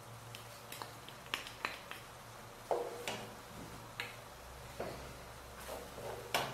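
Scattered soft clicks and pops, about eight in all, from a frying pan of thick mushroom cream sauce simmering on low heat as a wooden spoon taps butter into it and stirs, over a low steady hum.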